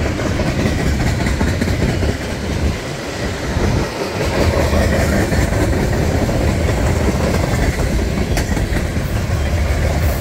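Freight cars of a Union Pacific manifest train (tank cars, a coil car, covered hoppers) rolling past close by: a steady rumble of steel wheels on the rails with occasional clacks.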